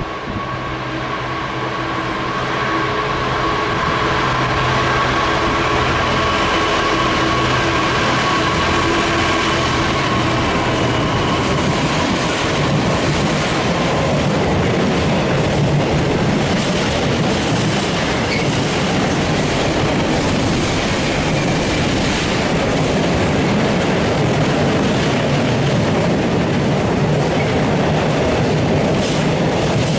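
A diesel freight locomotive approaches and passes with a steady engine note. The container wagons of a long freight train then roll by, wheels clattering over the rail joints.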